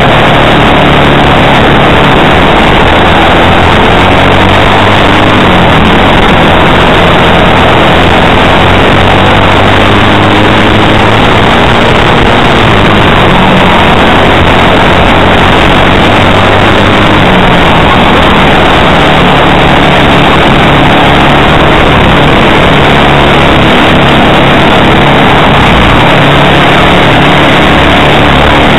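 Onboard sound of a World Formula racing kart at race speed: its single-cylinder four-stroke engine running hard, the pitch rising and falling as it goes through the corners, with other karts running close by. The recording is at full level the whole time.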